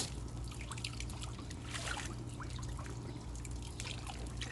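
Water trickling and dripping, with small scattered splashes over a steady low hum.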